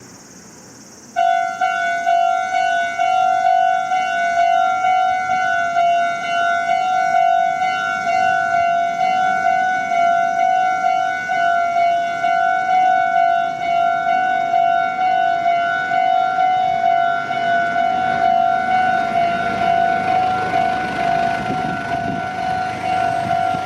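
Japanese railroad crossing warning bell switching on about a second in and ringing steadily in an even, repeating "kan-kan", signalling that a train is approaching. A low rumble grows beneath it near the end as the train draws near.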